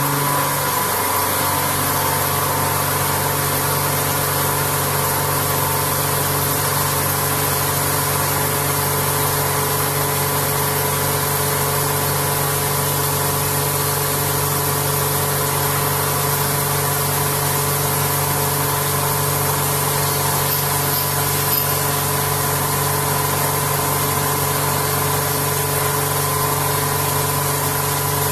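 Vertical machining centre face milling an aluminium part: the machine runs steadily, with a constant whine over an even hiss. The low hum shifts slightly about a second in.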